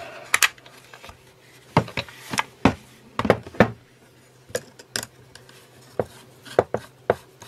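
Irregular sharp metallic clicks and knocks from handling a Kress 802 WS angle grinder, switched off, as its metal wheel guard is turned and a screwdriver is set into the guard's clamp screw.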